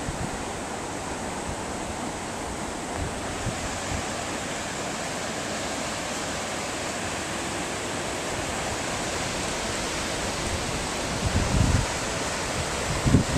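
Steady rush of a flooded river, its fast water pouring over the banks and through rapids. A few short low thumps come near the end.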